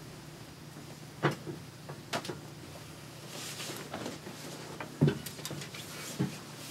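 Cloth rustling as a button-up dress shirt is pulled off, with a few separate knocks over low steady room hum.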